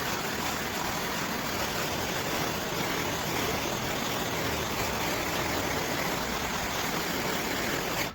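Small MAP gas torch burning with a steady hiss while it heats plastic ATV fenders to soften them.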